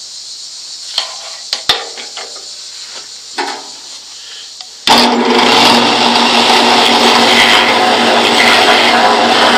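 A few clicks and knocks as the wooden spoon blank is handled, then about five seconds in a Harbor Freight drill press, converted to a mill, starts running loud and steady, its small rotary bit grinding into the spoon blank's bowl.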